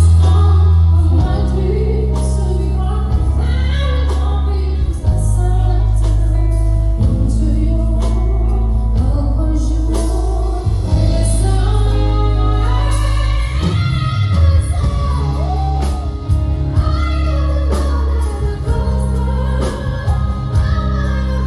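A woman singing with a live band: a sung melody over heavy sustained bass and frequent drum hits, the drums loud against the voice.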